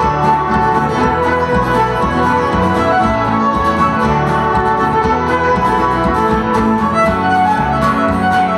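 Live Celtic folk band playing a tune: fiddle carrying the melody over plucked guitar and a mandolin-family instrument, with a bodhrán frame drum beating a steady rhythm.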